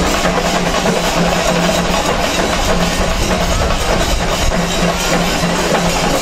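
Dense, loud drumming from a festival percussion ensemble over the din of a large crowd, with a low steady tone that breaks off and resumes every fraction of a second.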